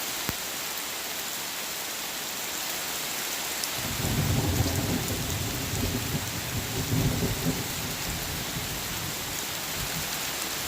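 Heavy rain falling steadily in a thunderstorm. A low rumble of thunder rolls in about four seconds in and dies away a few seconds later.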